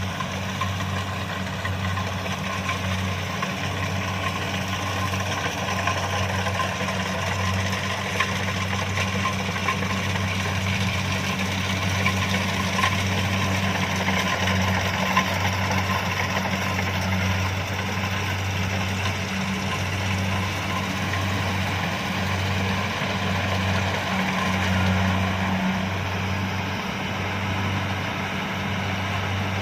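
Kubota DC-70 combine harvester's diesel engine running with a steady, low drone.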